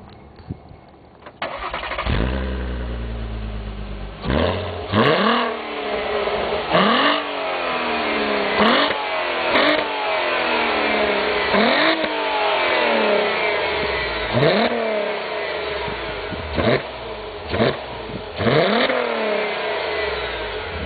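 Volkswagen Golf V R32's 3.2-litre VR6 engine heard at the exhaust: it starts about a second and a half in and idles briefly, then is revved in a series of about ten quick throttle blips, each rising sharply in pitch and falling back to idle.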